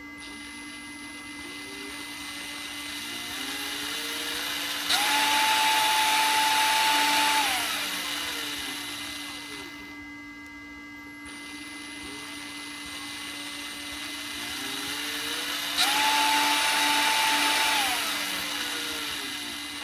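A 12 V cordless drill's brushed DC motor and gearbox run up twice as the trigger is squeezed. Each time the speed climbs gradually, jumps suddenly to full speed and holds a steady tone, then winds down. The sudden jump comes from its speed control, which runs to just over half power and then switches straight to full. A thin high whine comes from the roughly 10 kHz speed-control switching.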